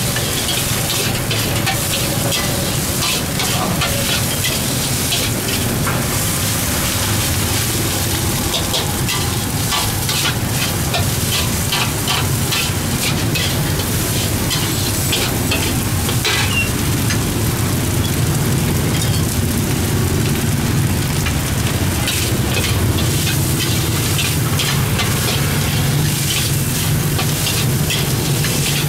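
Rice sizzling as it is stir-fried in a hot wok, a steady hiss broken by frequent clinks and scrapes of a metal ladle and spatula against the wok, over a steady low rumble.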